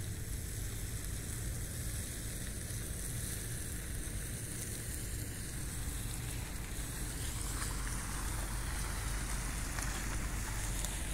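Steady hiss and low rumble of traffic on wet streets, the hiss growing louder from about seven seconds in.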